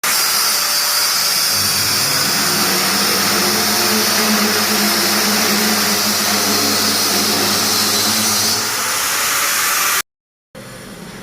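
Loud, steady machine noise with a low hum underneath for about ten seconds, then cut off abruptly.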